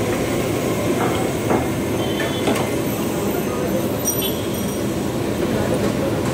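Steady roar of a gas stove under a wok of hot oil with a Mughlai paratha deep-frying in it, and a few short knocks of a metal ladle against the wok in the first half.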